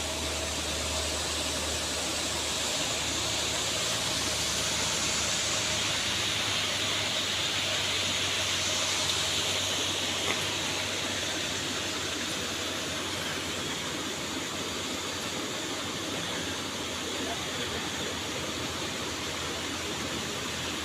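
Steady rushing noise like running water, with a high insect drone that swells in the middle and then eases.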